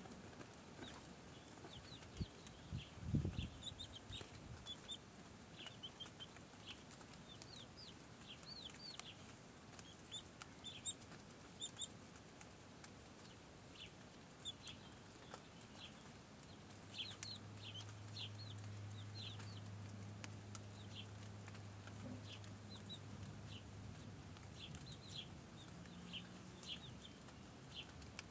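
Chicks peeping in many short, high calls, with hens clucking low now and then. A low steady hum comes in about midway and lasts several seconds.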